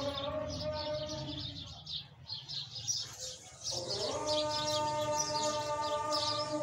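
Small birds chirping rapidly and continuously over a steady, held, pitched tone of several notes at once. The tone drops away about two seconds in and comes back, gliding up, just before four seconds.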